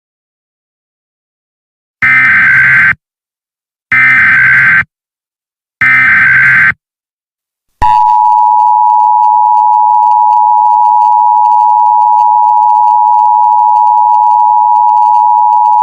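Emergency Alert System header: about two seconds in, three loud bursts of SAME digital data tones, each about a second long and a second apart. They are followed by the EAS two-tone attention signal, held steady for about eight seconds until it cuts off, which announces an alert message.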